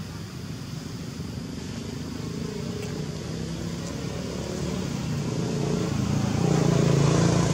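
Road vehicle engine hum that grows steadily louder and is loudest near the end, as the vehicle draws close on the road.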